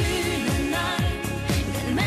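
Woman singing a German Schlager pop song over a full band backing, with a steady kick drum about two beats a second.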